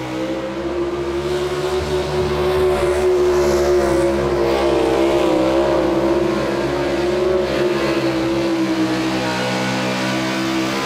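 Ford pickup truck's engine held at high revs under full load as it pulls the weight sled, a loud, steady, high-pitched drone that wavers slightly in pitch midway.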